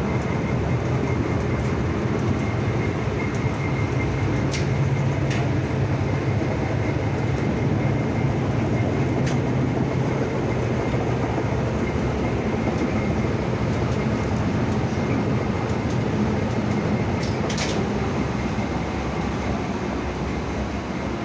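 LVS-86K articulated tram running along the track, heard from inside the passenger cabin: a steady rumble of wheels and motors with a faint high whine, and a few sharp clicks.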